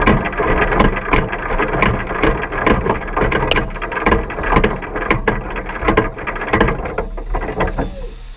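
Close, dense rustling and clicking of a quarter midget's seat-belt harness being handled in the cockpit, with fabric and hands brushing near the onboard microphone. It eases off near the end.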